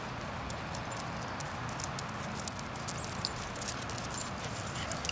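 Dogs running and playing on grass strewn with dry leaves: a light patter of paws with scattered faint clicks, over a steady outdoor hiss.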